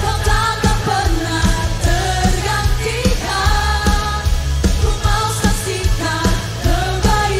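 Contemporary worship song: a lead voice singing a melody over a band, with a steady beat of drum hits and a bass line.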